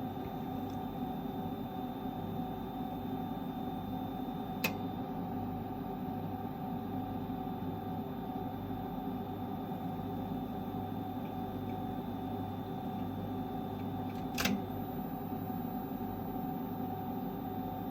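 MPP Solar PIP8048MAX inverter giving off a steady electrical hum and whine of several fixed tones, the abnormal noise the owner is recording. Two sharp clicks sound about ten seconds apart.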